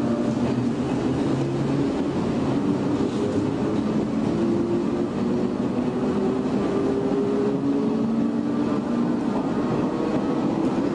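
Shin-Keisei 500-series electric train (car 504) with nose-suspended traction motors, heard from the cab: the motor and gear hum climbs steadily in pitch as the train gathers speed, over a continuous wheel-on-rail rumble.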